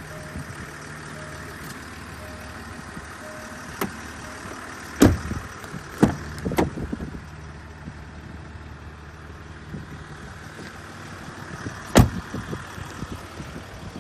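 Land Rover Discovery 4 doors being shut with solid thuds: two loud ones about five and six seconds in, a lighter one just after, and the heaviest near the end. Short, evenly repeating beeps sound during the first three seconds, typical of a door-open warning chime.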